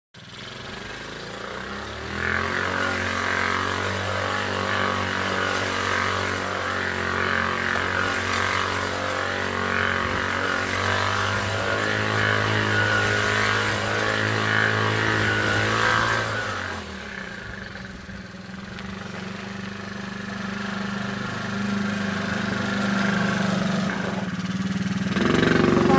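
Small ATV engine running at a fairly steady pitch as the quad is ridden, dropping away about two-thirds of the way through, then slowly building again.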